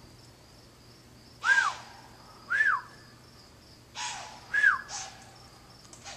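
An unidentified animal making about five short, breathy calls, each with a pitch that rises then falls, over a steady background of insect chirping. The calls have a huffing, puffing quality.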